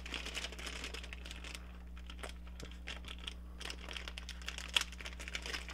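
Clear plastic packaging bag crinkling and rustling as a tool handle is worked out of it, with many small irregular clicks and one sharper click about three quarters of the way through.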